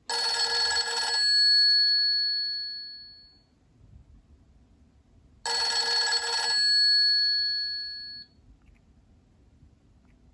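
Nokia 808 PureView ringtone imitating a telephone bell. A ring of about a second dies away over the next two seconds, and it is played twice, about five and a half seconds apart.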